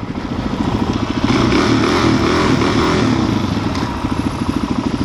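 Suzuki DR-Z400's single-cylinder engine running while riding, picking up about a second in, then dropping back to an even, pulsing beat near the end.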